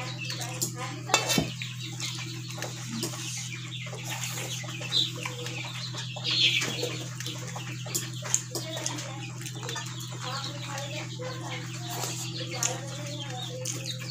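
Hands mixing and eating rice and curry from steel plates, with small clicks and a sharp clink of a steel bowl about a second in, over a steady low hum. Chickens cluck now and then in the background.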